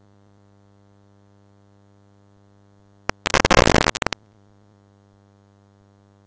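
Blank stretch of videotape playing back: a low, steady electrical hum with a buzzy edge. About three seconds in, a short click, then about a second of loud hissing static.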